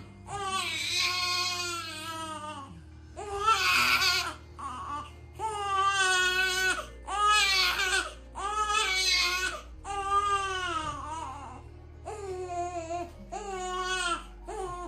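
Domestic cat yowling over and over, a series of about eight long, drawn-out cries that rise and fall in pitch, over background music.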